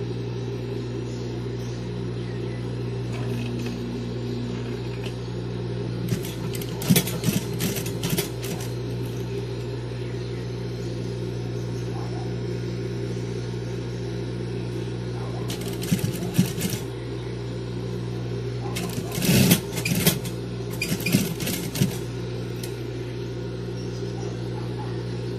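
Industrial sewing machine's motor humming steadily, with four short runs of rapid needle stitching: one about six seconds in lasting a couple of seconds, and three briefer ones later on.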